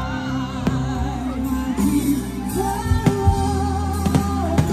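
Music with a singing voice carrying a melody over a steady bass, with a few sharp beats.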